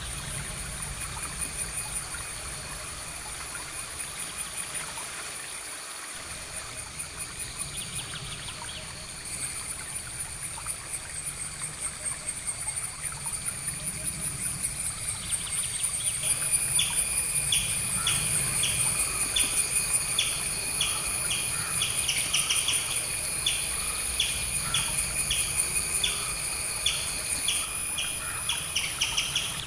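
Outdoor nature ambience: a steady high-pitched chirring with short chirping calls repeated about twice a second, which grow louder from about halfway in.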